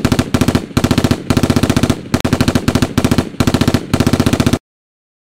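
Machine-gun fire: very rapid shots in a string of about eight bursts with short pauses between them, cutting off abruptly a little over four seconds in.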